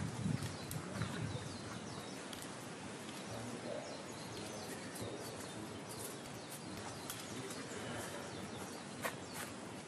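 Outdoor ambience of a quietly waiting crowd: a steady hiss with scattered small clicks, the sharpest about nine seconds in.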